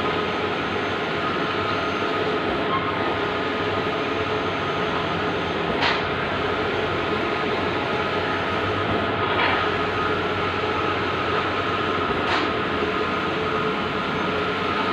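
Bluewin large-format outdoor printer running: a steady mechanical hum with a faint short sound about every three seconds.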